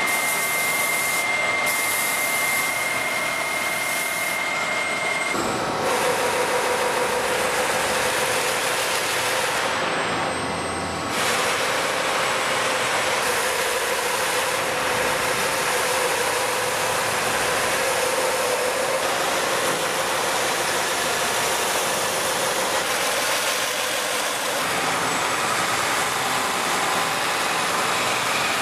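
Robotic polishing machine buffing brass faucet bodies: a spinning buffing wheel and its motor making a steady rushing hiss with a hum. The sound changes abruptly about 5 seconds in and again near 11 seconds, when the pitch of the hum shifts.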